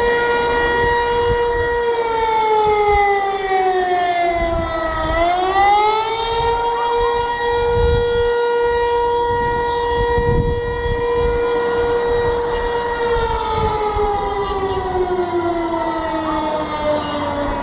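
Civil-defence air-raid siren sounding a steady tone. About four seconds in it sags in pitch, then climbs back within a second or two. It holds steady again before a slow falling wind-down that starts about four seconds before the end, over a low rumbling noise.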